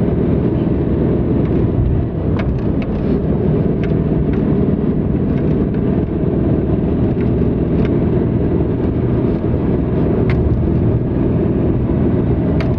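Car driving on a paved road, heard from inside the cabin: a steady low drone of engine and tyre noise, with a few faint clicks.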